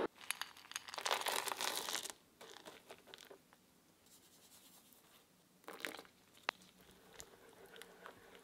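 Chopped dark chocolate tipped from a bowl into a pan of hot custard: a crisp rustling clatter lasting about a second, then softer scrapes. Near the end come a short second rustle and a single light click.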